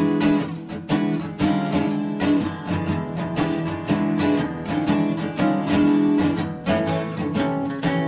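Background music: an acoustic guitar picking and strumming a steady run of notes.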